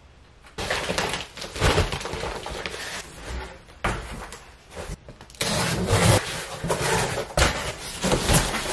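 Cardboard boxes being handled and tossed onto a pile: scraping and rustling of cardboard, with several sharp thuds as boxes land. It starts about half a second in.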